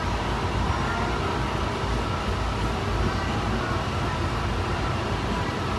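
Steady low rumble inside a Honolulu Skyline metro train car, with a faint steady whine above it.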